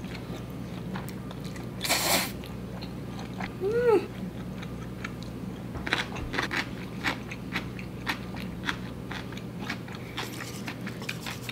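A person eating instant black bean noodles: a loud wet slurp of noodles about two seconds in, and a short hummed "mm" near four seconds. Then comes steady chewing with many small wet mouth clicks and smacks.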